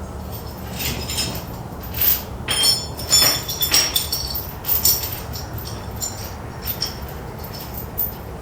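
Metal chain clinking and rattling as it is handled, with a run of sharp, ringing metallic clinks between about two and five seconds in, over a steady low hum.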